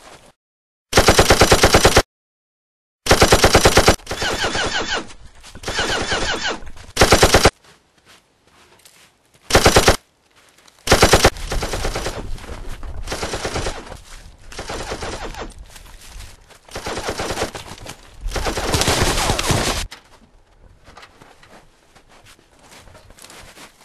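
Automatic gunfire in repeated bursts of rapid, evenly spaced shots, each burst lasting about a second, some very loud, with two completely silent gaps in the first three seconds. The firing fades to faint scattered sound near the end.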